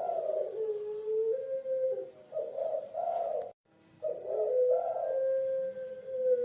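Puter pelung dove cooing: repeated low coos, some drawn out into long held notes that sag slightly at the end, broken by a brief sudden gap about halfway through.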